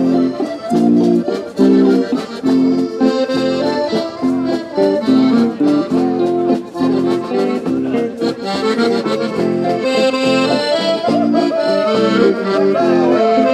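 Traditional Occitan folk dance music, a melody over a steady, bouncing rhythm of bass notes and chords.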